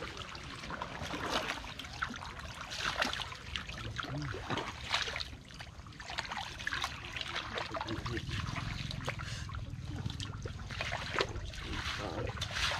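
Footsteps splashing and squelching through shallow water and soft mud, an irregular run of wet splashes and sucking steps.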